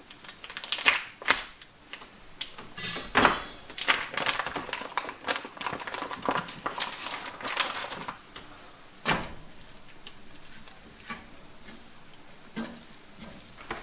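Kitchen clatter while breakfast is cooked: pans, dishes and utensils knocking and clicking in a busy run of short sharp sounds. The loudest clatter comes about three seconds in and another knock about nine seconds in, then only scattered clicks.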